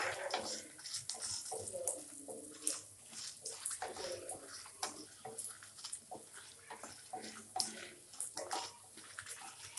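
Dried red chillies frying in hot sesame oil in a pan: a steady sizzle with irregular crackles and pops.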